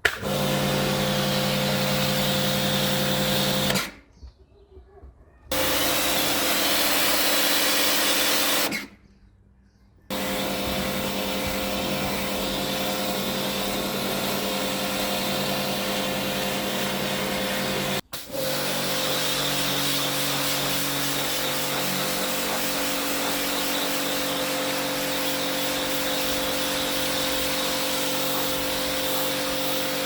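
Kärcher electric pressure washer running with a steady hum and hiss. It cuts out twice in the first ten seconds and starts again each time, then runs on, with a brief dropout about 18 seconds in.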